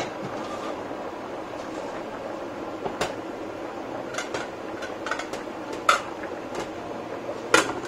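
Chana dal boiling hard in an open stainless-steel pressure-cooker pot: a steady bubbling, with a few sharp clicks of metal, the loudest near the end.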